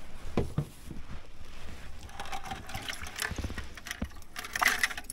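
Hands handling gear and fish: scattered light clicks, knocks and rustling as a fish is lifted out of a plastic tub, with a louder cluster of knocks near the end.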